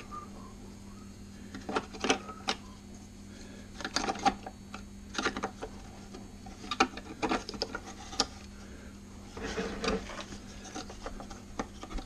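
Hard plastic parts of a vacuum cleaner's blower housing being handled, with a round plastic tube worked against its square outlet: scattered clicks, taps and scrapes in small clusters.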